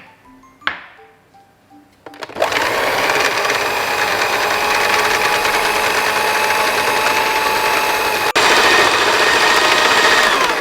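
Electric kitchen mixer motor running steadily, as when kneading bread dough. It breaks off for an instant about eight seconds in and comes back slightly louder.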